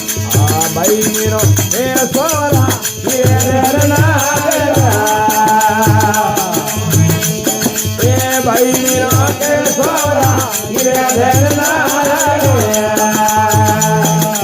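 Marwari desi bhajan music: a voice singing long, bending melodic lines over a steady held drone, a regular low drum beat, and a rattle-like percussion ticking evenly throughout. The singing stops about a second before the end, leaving the drone and beat.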